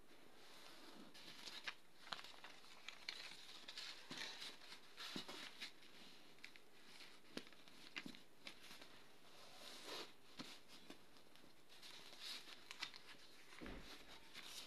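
A sheet of lined notebook paper rustling and crinkling as hands fold and crease it. The sound is faint, with many short irregular crackles and soft taps over a low steady hiss.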